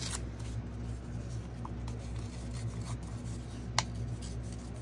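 Paper being handled and rubbed: light rustling and scratching strokes, with one sharp click a little under four seconds in, over a steady low hum.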